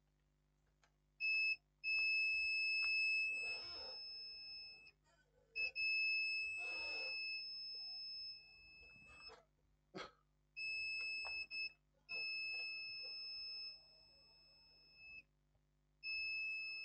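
A multimeter's continuity beeper sounding repeatedly as the probe tips touch points on a circuit board. It gives a steady, high, piezo-like beep each time the probes make contact, some beeps short and some held for a few seconds. Light scratching of the probes and a click come between the beeps.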